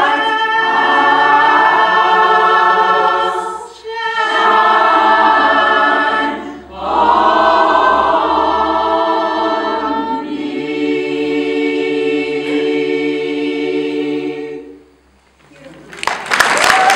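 Women's a cappella choir singing a traditional gospel song in close harmony, in phrases with short breaks, ending on a long held chord that stops about fifteen seconds in. Applause breaks out about a second later.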